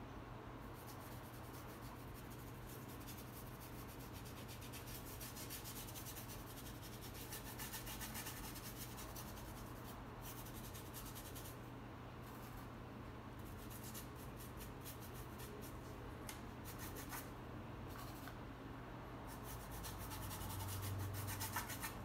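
Faint scratching and rubbing of a paintbrush's bristles stroking and dabbing acrylic paint onto a canvas, in runs of quick short strokes, over a low steady hum.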